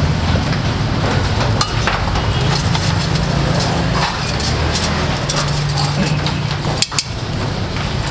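Metal ladle and kitchen scissors clicking and clinking against a steel stockpot of beef pares, over a steady low mechanical hum.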